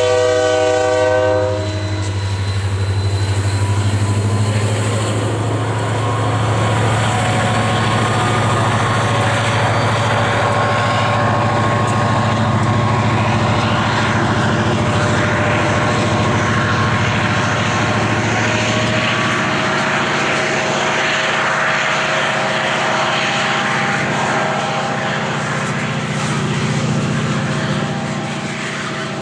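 Union Pacific SD40-2 diesel locomotive: its air horn finishes a blast about a second and a half in, then its turbocharged EMD 645 two-stroke diesel drones steadily as it hauls tank cars, with rolling rail and wheel noise. The engine's drone shifts in pitch about two-thirds of the way through.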